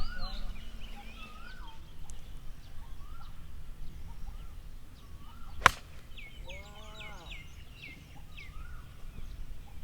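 A single sharp crack of a golf club striking a ball, a little more than halfway through, over birds chirping in short repeated rising-and-falling calls.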